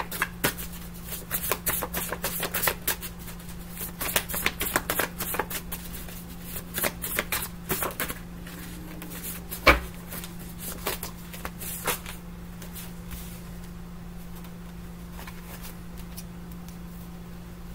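A deck of tarot cards being shuffled by hand: a quick, dense run of clicks and riffles for about twelve seconds, with one sharper snap about ten seconds in, then stopping. A steady low hum runs underneath.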